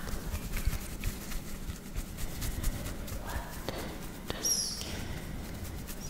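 Close-miked hand and skin sounds: quick taps, pats and rubbing of skin right at the microphone, with a couple of short high squeaks in the second half.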